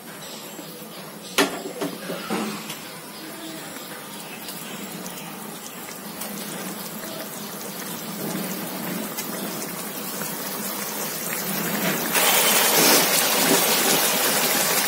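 Kofta curry gravy boiling in a shallow pan: a bubbling, spitting hiss that grows steadily louder and jumps up about twelve seconds in as the boil strengthens. A sharp knock about a second and a half in.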